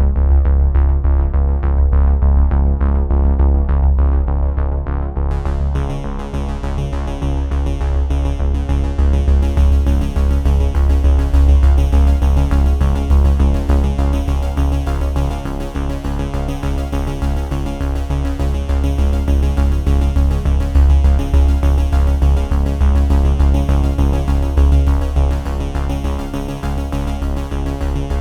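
Electronic background music with synthesizer and a heavy, steady bass beat; it gets brighter about five seconds in.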